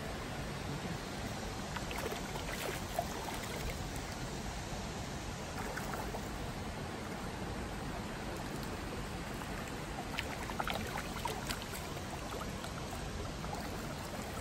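Creek water running steadily over a shallow bed, with a few faint splashes as a small hooked trout is reeled in.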